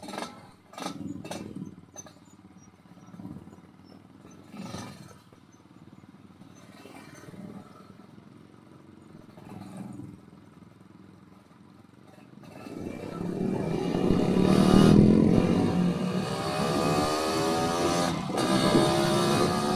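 Yamaha RX-King's two-stroke single-cylinder engine with an aftermarket underslung exhaust, whose header the owner suspects is mis-set. It runs quietly with some scattered knocks and clatter, then about 13 seconds in grows loud as the bike accelerates, its pitch rising and falling.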